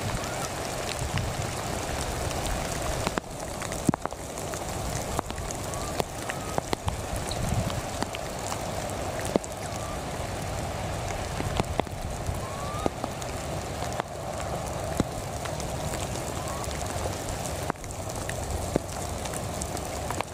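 Steady rain falling, with many individual drops ticking sharply through it and a few faint short rising chirps.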